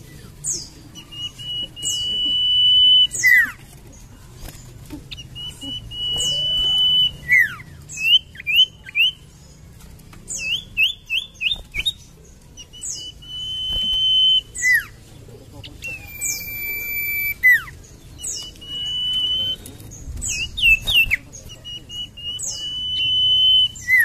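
Common iora (sirtu, cipoh) singing: long, steady high whistles that each end in a quick falling note, mixed with short high downward notes and quick runs of short notes. The phrases repeat every few seconds, about seven times.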